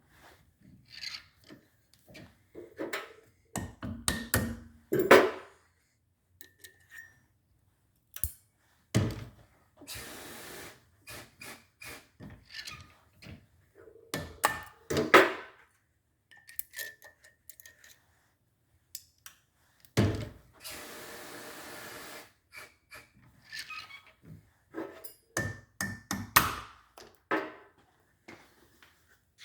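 Irregular metallic clanks, clicks and knocks as keepers, valve springs and valves are taken out of a Subaru single overhead cam cylinder head and set down, with two brief rushing noises about ten and twenty seconds in.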